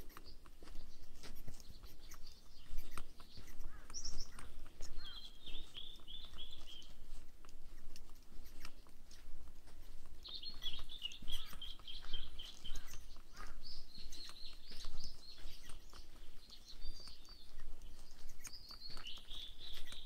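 Songbirds singing several trilled phrases, each a couple of seconds long and falling slightly in pitch, over steady footsteps on a dirt forest trail; the footsteps are the loudest sounds.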